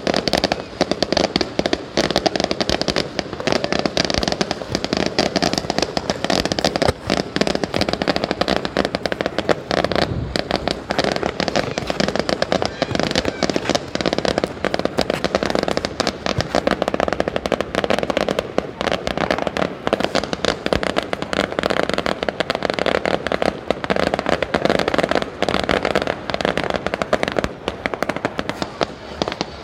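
Fireworks display going off as a dense, unbroken run of bangs and crackles in quick succession.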